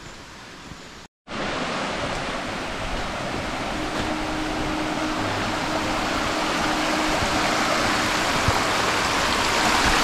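Forest stream rushing over rocks, a steady loud wash of water that comes in after a brief cut about a second in and grows slowly louder.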